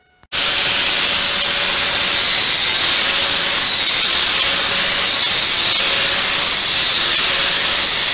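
Angle grinder with a sanding disc running against a metal Stirling engine piston, polishing out scratches in its surface: a loud, steady hiss of abrasive on metal that starts suddenly just after the beginning.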